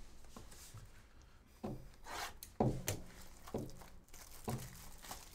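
Hands working the plastic shrink-wrap off a cardboard trading-card box: a series of short scratchy rubs and scrapes, starting about a second and a half in.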